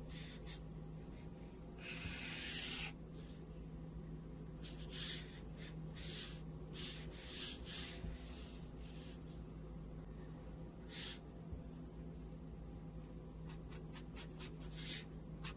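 Felt-tip marker drawing on paper: one long stroke about two seconds in, then a run of short strokes, with quick hatching strokes near the end. A steady low hum sits underneath.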